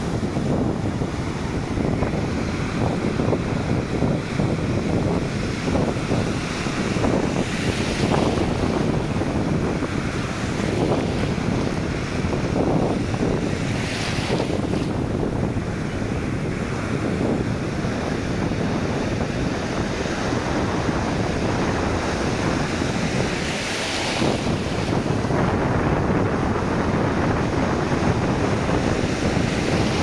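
Shallow sea surf washing over a sandy beach: small waves breaking and foam rushing in, a steady rushing with a brighter hiss now and then. Wind buffets the microphone throughout.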